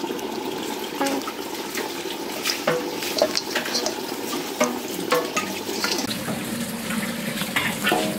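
Wet squelching and smacking of hands kneading a thick spice-paste marinade into a whole crocodile in a steel wok: irregular short wet clicks over a steady watery hiss.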